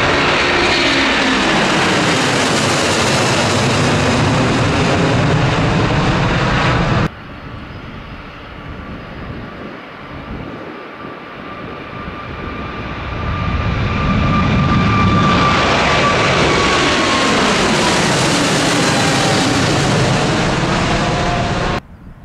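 Twin-engine jet airliners at takeoff power climbing out, one after another: loud steady jet engine noise stops abruptly about seven seconds in. A quieter rumble then builds into the second jet's takeoff noise, with a whine slowly falling in pitch as it passes, and this cuts off sharply near the end.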